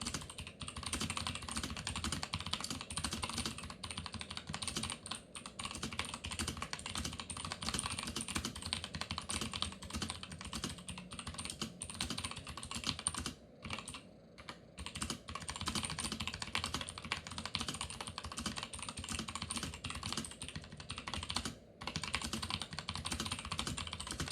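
Chicony 5181 keyboard with clicky Aristotle switches being typed on quickly: a dense, continuous stream of key clicks, with a short pause just past halfway and a brief one near the end.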